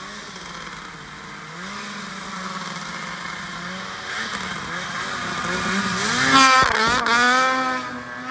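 Snowmobile engine revving as the sled comes closer, growing steadily louder. About six seconds in, the pitch swings sharply up and down as the throttle is worked at its loudest.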